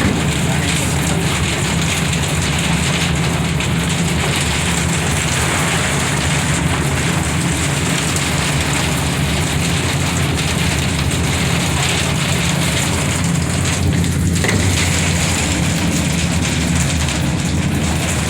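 Heavy rain pelting the aerial tram car, a dense steady hiss with a low steady hum underneath.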